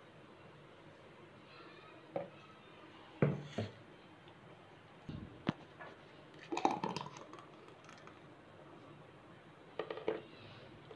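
A handful of faint, separate knocks and clinks of glassware: drinking glasses and a glass blender jar being handled and set down on a countertop while thick milkshake is poured.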